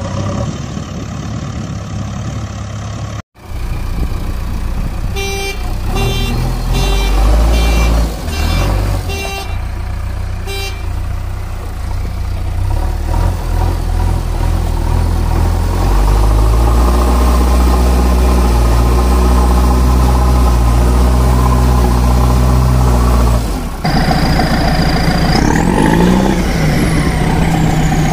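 Heavy-vehicle engine sound effects: the engine runs with a row of short, evenly spaced beeps a few seconds in, then a steady low drone. Near the end come a high whistling tone and sweeping glides that rise and fall.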